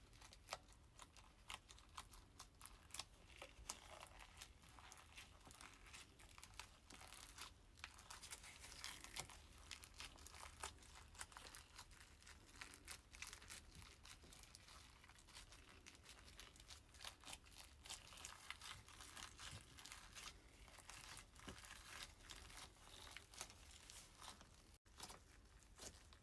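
Faint, dense crackling and popping of crunchy slime being poked with the fingers, many small crisp snaps in quick succession.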